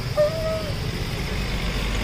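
Spiral-cut potatoes on sticks sizzling in a tray of hot frying oil over a steady low street rumble, with a short pitched tone about a quarter second in.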